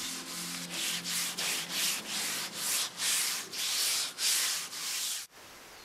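Hands scrubbing fine sand back and forth over the surface of a peeled Kitayama cedar log. This is suna-migaki, sand polishing, the final finishing of the log. It makes a rhythmic rasp of about three strokes a second that cuts off near the end.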